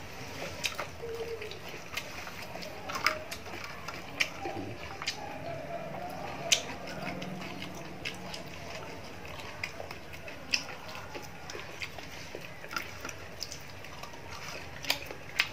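Eating sounds: chewing fried fish, with irregular wet mouth clicks and smacks.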